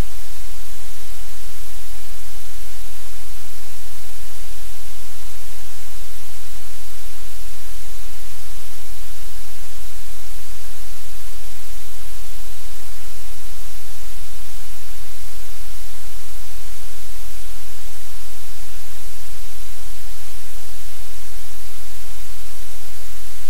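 Loud, unchanging static hiss with a steady low hum underneath: electrical noise on the audio line, with no sound from the sleeping dog made out.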